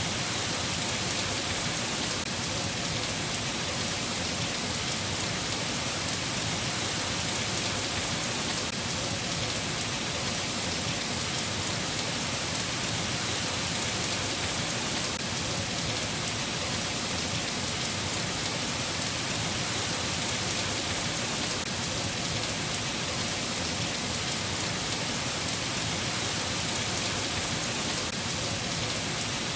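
Steady rain falling, an even, unbroken hiss of drops that holds the same level throughout.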